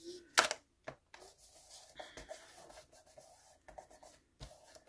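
Hands handling card stock: a sharp tap as the card layer comes down on the board, then soft rubbing of palms and fingers as it is pressed and smoothed flat.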